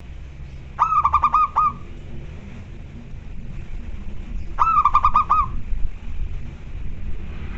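Zebra dove (perkutut) singing its staccato cooing song twice, about four seconds apart, each a quick run of about six coos.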